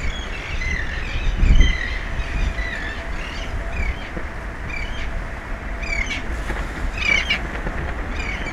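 Repeated short, high chirping calls, many quick downward sweeps, over steady low background noise, with a low thump about a second and a half in.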